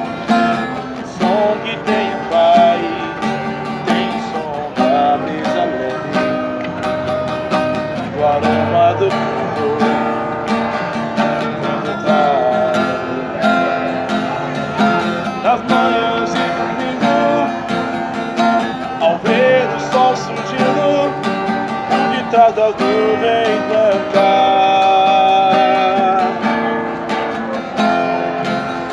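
Music: an instrumental passage led by a strummed acoustic guitar, with a melody line wavering over it.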